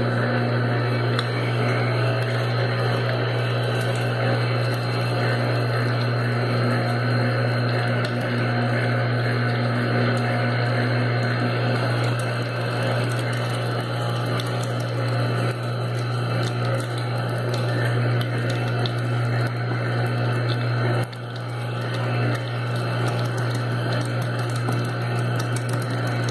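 Domestic electric meat grinder running with a steady hum as it grinds raw pork, the motor's sound dipping briefly about three quarters of the way in.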